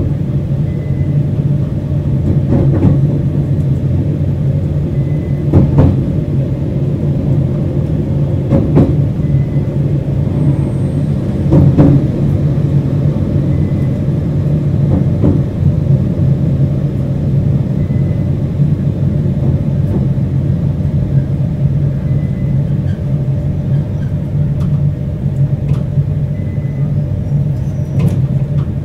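Steady low rumble inside the carriage of a JR Hokkaido 721 series electric multiple unit, with occasional knocks and a faint short high tone about every four seconds.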